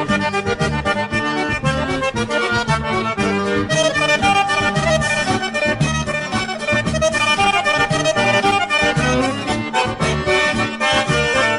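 Background music led by accordion, with a steady bass beat.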